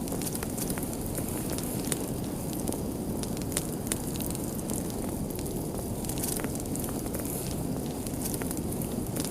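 Fire crackling: frequent irregular small pops and snaps over a steady low rush of burning.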